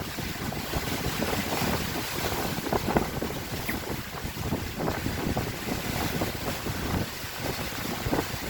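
Strong, gusty wind buffeting the microphone, a constant rushing roar with irregular louder surges.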